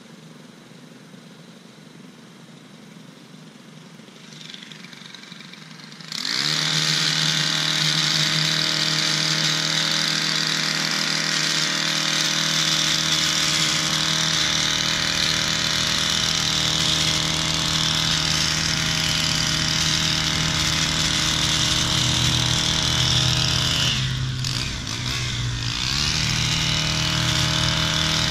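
A small two-stroke power-tool engine comes in abruptly about six seconds in and runs steadily at high revs. Near the end it eases off briefly, dropping in pitch, then revs back up.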